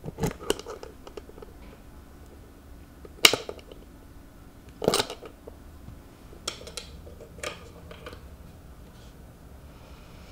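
Key and small brass padlock on a wooden box's metal hasp being worked: a string of sharp metallic clicks and rattles, with a cluster near the start, two loud clicks about three and five seconds in, and a few lighter ones after.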